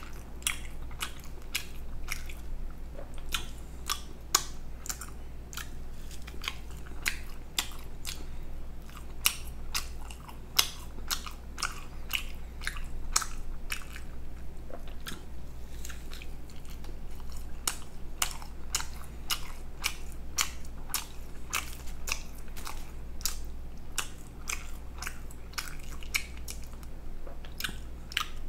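Close-miked eating: a person chewing food, with sharp, irregular mouth clicks several times a second, over a steady low hum.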